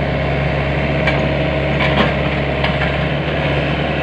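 Excavator's diesel engine running steadily, with a few light knocks about one, two and nearly three seconds in.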